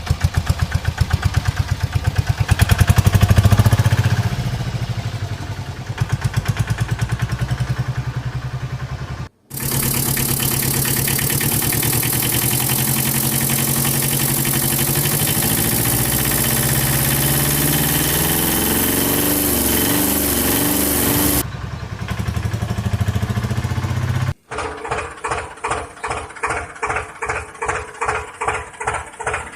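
Small engine of a homemade miniature tractor machine running with a rapid, even pulsing, in three edited clips; in the middle clip a steady loud hiss sits over the running, and in the last clip the beat slows to about three pulses a second.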